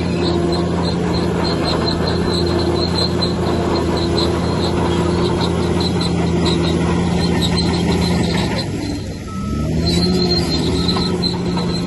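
Heavy diesel bulldozer running steadily, with a high, repeated squeal from its crawler tracks. About nine seconds in the engine note sags briefly and then climbs back.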